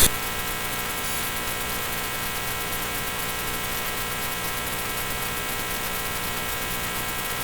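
Cat purring close to the microphone, a steady, even buzzing hum with no breaks.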